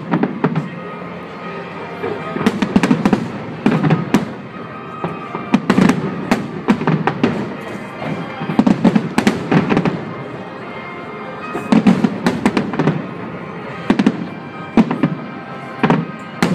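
Aerial firework shells bursting in quick volleys of booms and crackles. A cluster of several bangs comes every two to three seconds, with short lulls between.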